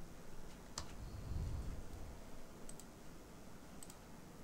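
A few faint, sharp clicks: a single one about a second in, then two quick pairs later on. A soft low rumble sits between the first click and the first pair and is the loudest part.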